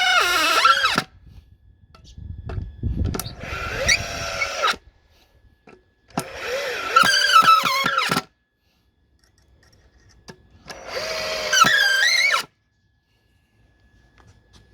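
Makita DF347DWE cordless drill-driver driving screws into wood in short bursts. Its motor whine runs four times, about two seconds each with short pauses between, its pitch dipping and rising as the load changes.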